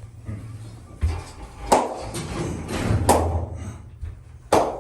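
Dover elevator in motion: a low rumble with three sharp clunks about a second and a half apart.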